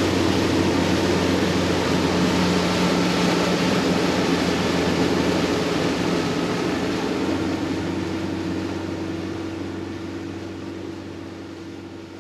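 Boat engine running steadily under way, with a rush of wind and water over it, fading out gradually over the last five seconds.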